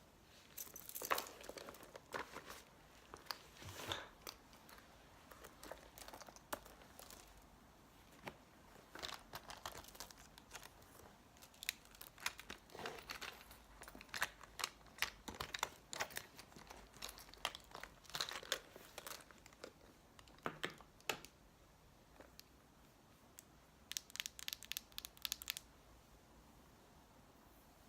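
ASMR makeup-roleplay handling sounds: makeup items and packaging handled close to the microphone, making scattered clusters of short taps, clicks and rustles. A quick run of clicks comes near the end.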